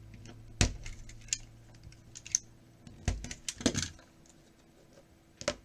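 Trading cards and their packaging being handled on a table: a series of sharp clicks and taps, the loudest about half a second in and again around three seconds in.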